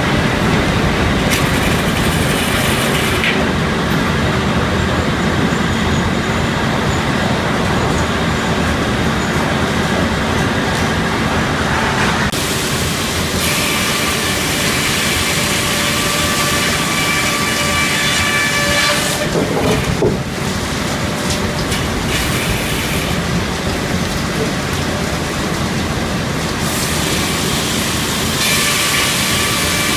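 Circle sawmill running: the big circular head saw and log carriage working through a Douglas fir log, a steady loud mechanical noise with a whine that comes and goes and shifts pitch as the cuts change.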